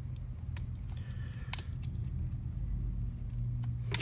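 Small sharp clicks and taps of metal repair tools and tiny parts on a smartphone being reassembled, scattered irregularly, over a steady low hum.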